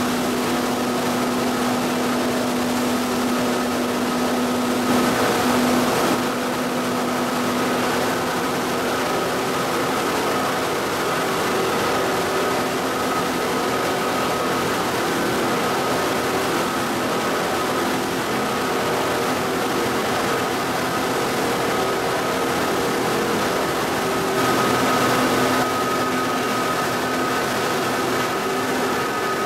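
Plastic film washing and recycling line machinery running steadily: a continuous mechanical drone with a low hum and a higher steady whine, louder for a second or so twice.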